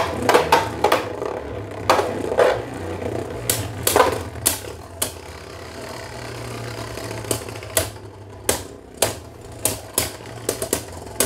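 Two Beyblade Burst spinning tops, Ace Dragon and Bushin Ashura, spinning in a clear plastic Beyblade stadium and clashing with irregular sharp clicks and clacks. A steady low hum runs underneath.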